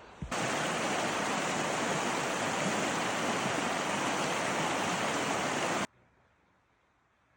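A single thud, then rushing river water: a steady, full rush that starts abruptly and cuts off suddenly about six seconds in.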